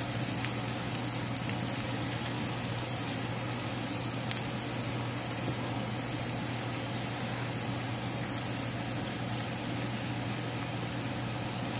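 Chopped onion frying in melted butter in a skillet: a steady sizzle and bubbling with a few small pops. A steady low hum runs underneath.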